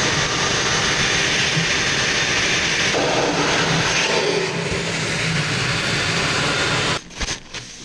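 Xlerator high-speed electric hand dryer blowing a loud, steady rush of air onto a freshly rinsed bare-steel motorcycle fuel tank to dry it. The sound shifts about three seconds in as the tank is moved under it, and the dryer cuts off suddenly about seven seconds in.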